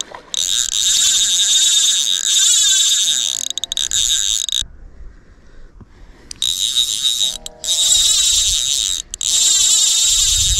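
Fly reel's click-and-pawl drag buzzing in long runs while a hooked trout is played, with short breaks and one longer pause near the middle.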